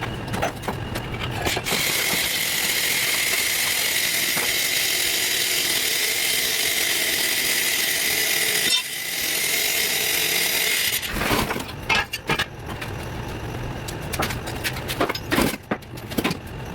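A power tool runs steadily for about nine seconds, with a brief dip partway through, then stops; knocks and clatter come before and after it.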